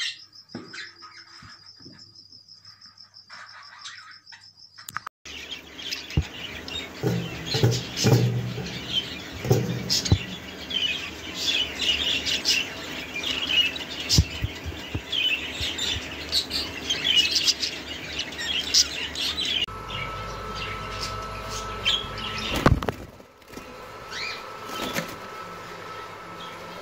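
Caged budgerigars chirping and chattering, with flutters of wings. After a quieter start, the chatter becomes dense about five seconds in.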